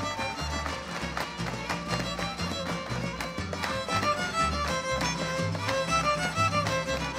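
Instrumental break of a Michoacán son: a violin carries the melody over a steady, rhythmic bass line that walks between notes.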